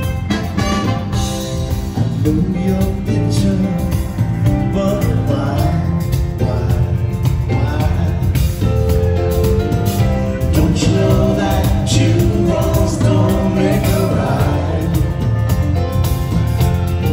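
Live band playing loudly with singing, heard from the audience of a concert.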